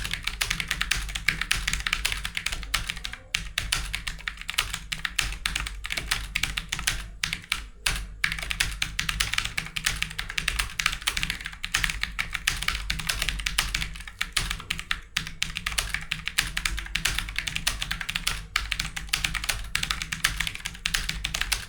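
Fast, continuous touch-typing on a computer keyboard at about 85 words per minute: a dense stream of key clicks with a few brief pauses, over a steady low hum, stopping abruptly at the end.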